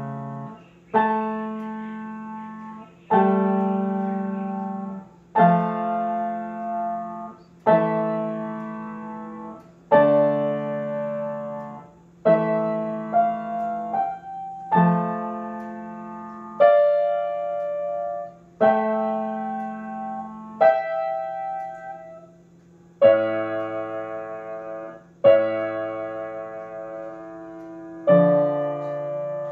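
A grand piano played slowly: chords struck about every two seconds, each left to ring and fade before the next.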